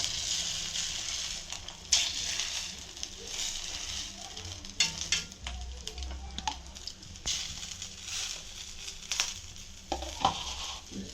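Dosa batter with a beaten egg sizzling in oil on a hot dosa pan, the sizzle slowly dying down. A utensil clicks sharply against the pan now and then.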